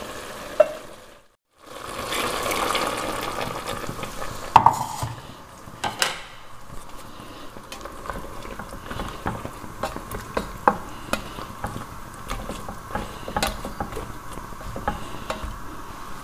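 Ground masala paste being mixed into a pot of part-cooked vegetables with a spoon, the spoon scraping and clinking against the pot in scattered irregular strokes. About two seconds in there is a stretch of pouring and sloshing as a little water goes in with the masala.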